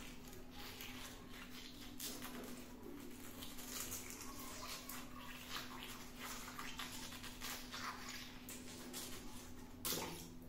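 Water balloons popping and splashing: a string of irregular sharp pops and splatters, the loudest one near the end, over a steady low hum.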